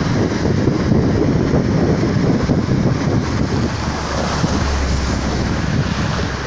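Wind buffeting the phone's microphone over the road noise of a moving car. A deeper rumble comes in about four seconds in as an oncoming lorry passes.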